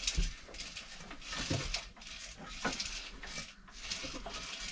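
Lister HW3 three-cylinder diesel being cranked round slowly by hand, heard as a series of short breathy hissing puffs about once a second with a soft knock or two.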